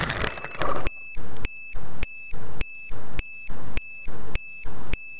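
Piezo alarm buzzer on a crashed, upturned quadcopter beeping in a steady series of short high beeps, a little under two a second, starting about a second in as a short rush of noise fades out.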